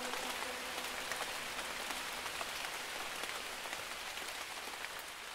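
Steady rain falling, an even hiss with scattered small drop ticks. A held musical note under it dies away about a second in.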